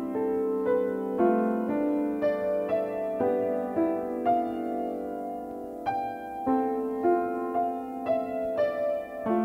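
Piano music: a gentle melody of single struck notes, about two a second, with a longer held pause about halfway through.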